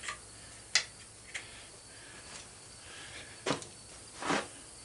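Tools and metal parts being handled while a chipper shredder is taken apart: a few light clicks, then two louder knocks near the end.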